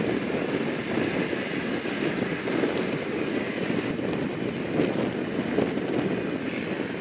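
Military jet engines running: a steady, rushing noise with no distinct tone.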